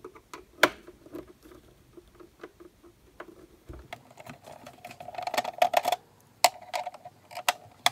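A hand screwdriver turning screws out of the Rigol DS1054Z oscilloscope's plastic back cover: small clicks and quick ticking as the screws turn, with a few sharper clicks. The clicking is densest a little past the middle, as the second screw is worked.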